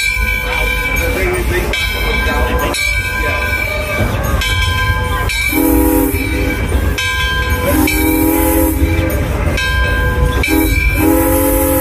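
Steam whistle of Alco #18, a 2-8-0, sounding two long blasts, a short one and then a long one, the grade-crossing signal. Under it the train's wheels rumble steadily on the rails.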